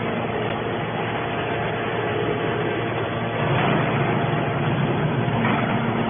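Hydraulic scrap metal baler running: a steady machine drone from its hydraulic power unit, a little louder from about three and a half seconds in.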